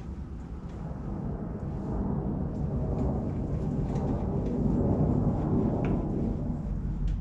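Craftsman 101.21200 metal lathe running with the carriage power feed engaged, a steady rumble of motor and gearing that swells toward the middle and eases off near the end. The feed is working again after the carriage rebuild.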